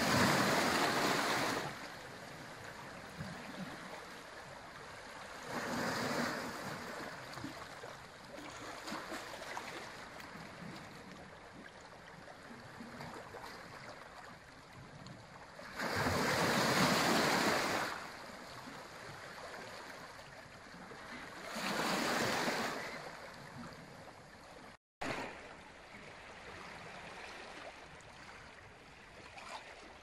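Small sea waves washing in over rocks and a pebble beach: four rushes of water, each a second or two long and the loudest a little past halfway, with a softer steady wash of the sea between them. The sound cuts out for a moment about five seconds before the end.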